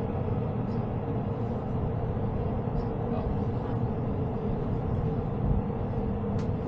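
Steady mechanical hum and low rumble with a constant mid-pitched tone, heard inside a moving enclosed Ferris wheel gondola.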